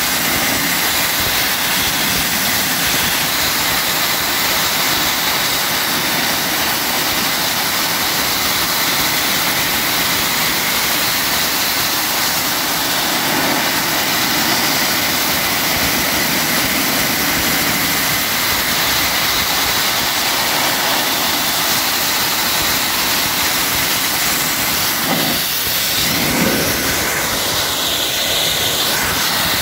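Wet abrasive blasting nozzle spraying a water-and-abrasive mix onto steel as it strips rust, a loud steady hiss. It wavers briefly about 25 seconds in.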